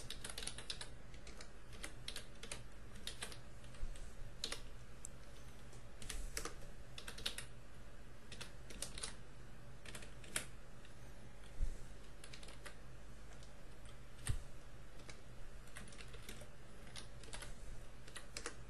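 Computer keyboard being typed on in irregular runs of keystrokes, a few of them louder, over a faint steady low hum.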